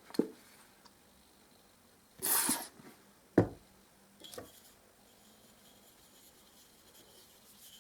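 A lubricated wooden dowel being worked into the end of a roller extension pole: a light click, a brief scraping rush about two seconds in, then one sharp knock and a fainter tap a second later.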